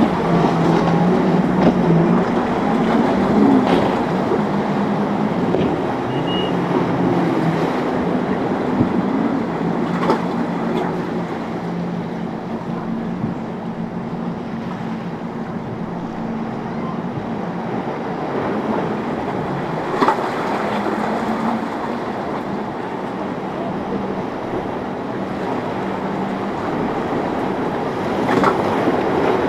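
Several outboard motors on a large center-console boat running at speed through rough water: a steady engine hum over the rush of wake and spray, with a couple of brief thumps.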